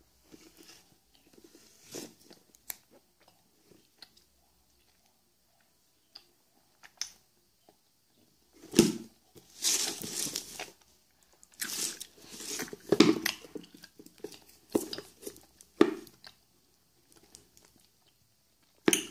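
Close handling noise of a round watch gift box being turned in the hand against the microphone: irregular rubbing, scraping and light knocks, sparse at first and busiest in the middle, with a sharp knock at the end.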